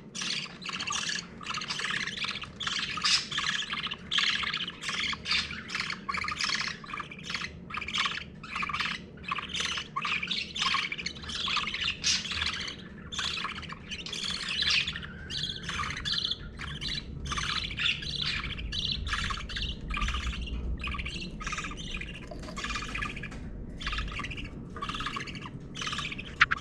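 One-week-old budgerigar chicks begging while the mother budgie feeds them: rapid raspy squawking cheeps, several a second, kept up without a break.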